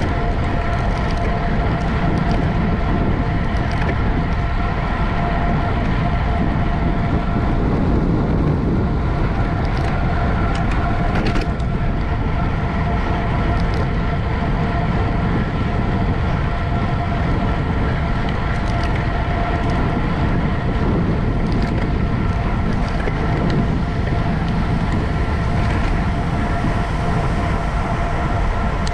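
Steady rush of wind and road noise from a racing bicycle ridden at speed, with a steady high whine running through it and a few faint clicks.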